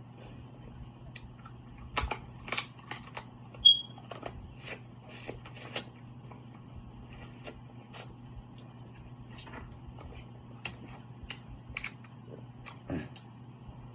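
Eating a seafood boil: irregular clicks and cracks of shells being broken and picked apart, and of biting and chewing, over a steady low hum. The loudest is a short, sharp high-pitched click a little under four seconds in.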